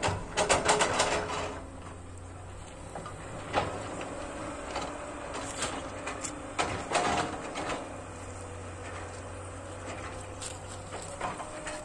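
Hydraulic crawler excavators working some way off: a steady low diesel engine drone with scattered sharp knocks and clatters, the busiest burst about half a second to a second in.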